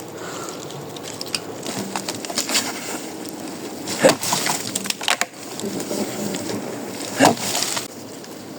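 Wood cracking and splintering: scattered small cracks, with two loud sharp snaps about four and seven seconds in.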